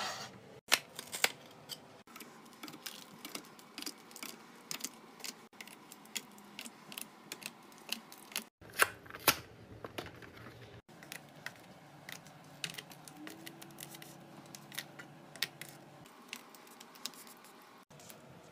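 Hands handling coffee capsules and their packaging: a bamboo drawer sliding, a cardboard capsule box being opened, and aluminium capsules clicking and tapping as they are set into a wooden tray. Many short clicks and taps, a few louder, over soft rustling, broken by abrupt cuts.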